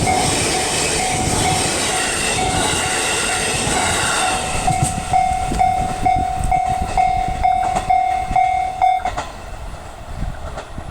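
A JR East E531-series electric train passing a Japanese level crossing while the crossing's warning bell rings about twice a second. The rushing noise of the train drops away about four and a half seconds in, leaving the bell and a few sharp wheel clacks. The bell stops about nine seconds in.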